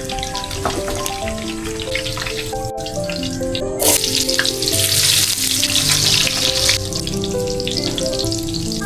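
Food frying and sizzling in a pan under soft background music; the sizzle swells louder for about three seconds in the middle.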